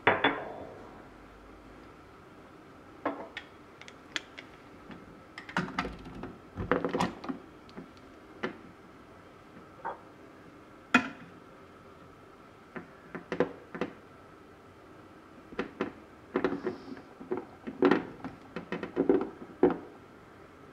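Scattered metal clanks and knocks as the portafilter is fitted and locked into the brass group head of a La Pavoni Professional lever espresso machine, and a glass cup is set beneath it. The loudest is a ringing clank at the very start.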